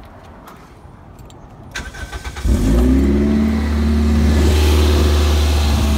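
Toyota MR2's 1ZZ 1.8-litre four-cylinder starting: a brief crank about two seconds in, then the engine catches and settles into a steady idle. It breathes through a Malian header and downpipe, a 200-cell cat and the stock rear muffler, with the exhaust only temporarily fitted and not fully bolted up.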